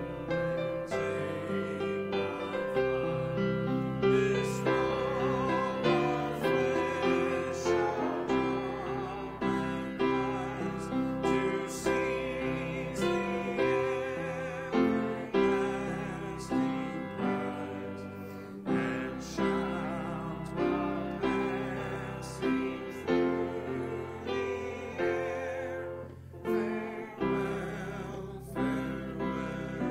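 Voices singing a slow hymn with piano accompaniment, the piano striking a new chord about once a second under the held, wavering sung notes.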